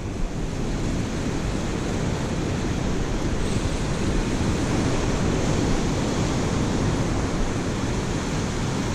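Surf breaking and washing up the sand, a steady rush, with wind buffeting the microphone.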